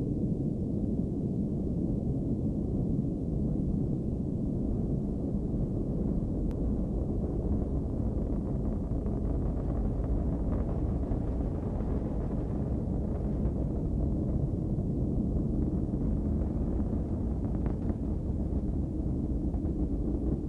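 Long March 4C rocket's first-stage engines during liftoff and climb: a steady, deep rumble.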